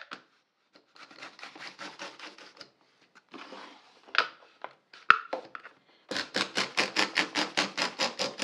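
Hand router plane paring the bottom of a groove in a red oak panel to depth: runs of quick, short scraping strokes, about six a second, louder in the second half, with two sharp knocks in the middle.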